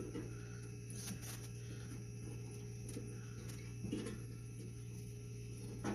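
Faint clicks and handling noises as a dryer drive belt is worked around the motor pulley against a stiff spring-loaded idler tensioner, over a steady low hum.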